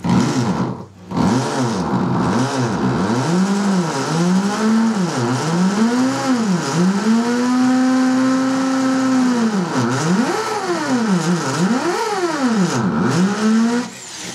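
Hammer drill with a masonry bit boring into a masonry wall; its motor whine rises and falls in pitch over and over as it works. It stops briefly about a second in, then runs again until it stops near the end.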